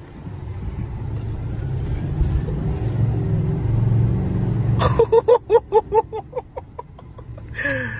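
Chevrolet Silverado diesel pickup's engine rumbling as the truck accelerates, growing louder over the first few seconds. About five seconds in comes a short run of rapid, voice-like pitched pulses.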